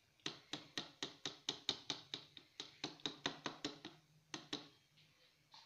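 A wire whisk tapped repeatedly against the rim of a plastic mixing bowl, knocking cake batter off it: quick, light taps about four a second, with two last taps after a short pause.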